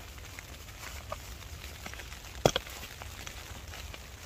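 Nylon rustling as hands handle an inflated air sleeping mat and its small stuff sack, with scattered small clicks and one sharp click about two and a half seconds in.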